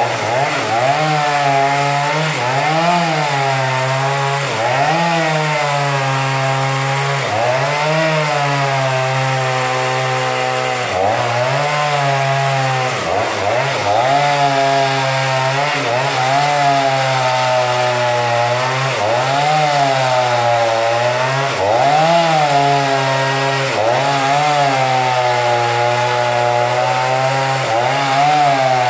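Petrol two-stroke chainsaw running at full throttle while cutting lengthwise through a large log. The engine note repeatedly sags and climbs back, about every one and a half to two seconds, as the bar bites into the wood and frees again.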